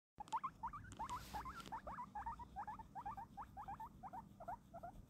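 Guinea pig giving a quick run of short, soft squeaks, about five a second.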